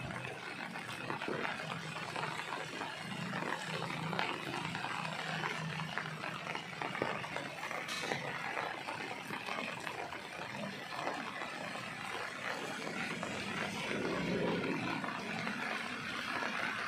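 Steady, noisy outdoor ambience: an even hiss with a few faint clicks and no clear single source.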